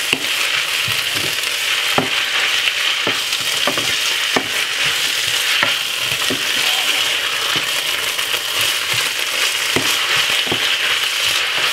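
Saltfish with peppers, onion and sweet corn sizzling steadily in a frying pan, stirred with a wooden spoon that knocks and scrapes against the pan every second or so.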